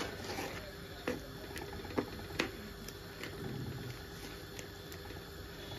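Wooden spatula stirring thick curry in a clay pot, scraping and knocking against the pot's sides, with a few sharp knocks about one and two seconds in.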